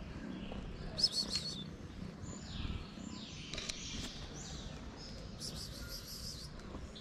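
Small birds chirping: a quick cluster of high chirps about a second in and another near the end, with several high calls sliding downward in pitch between them.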